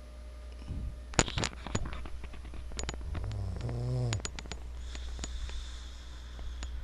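A man snoring in heavy sleep after a night of drinking: one low, rattling snore about three seconds in, then a fainter breathy hiss. A few sharp clicks come before it, about a second in.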